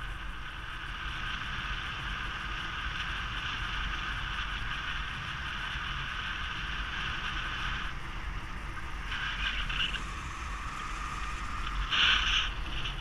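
Steady rush of airflow over the camera during a paraglider flight, with a louder gust near the end.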